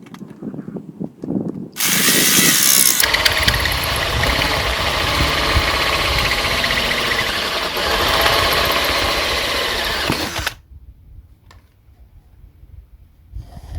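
Battery-powered handheld cutter switched on about two seconds in and cutting into aluminium, a steady motor whine with grinding for about eight seconds before it stops suddenly. The cutter is running with a slightly blunt cutting edge.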